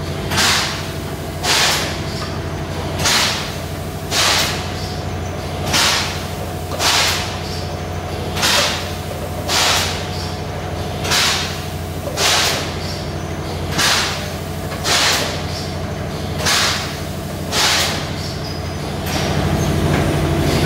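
Three-cavity automatic PET bottle stretch-blow moulding machine running. Sharp hisses of compressed air come in pairs about a second apart, and each pair repeats with the machine's cycle of about 2.7 seconds. A steady machine hum runs underneath, and a louder steady drone comes in near the end.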